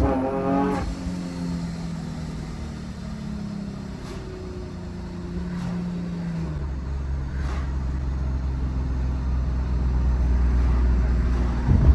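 Supercharged Nissan 370Z's VQ37VHR V6 through a Motordyne Shockwave exhaust, easing off after a pull: the engine note falls slowly off throttle. About halfway through it settles into a lower, deeper drone at light throttle that builds gently. A brief sharp change in the engine note comes right at the end.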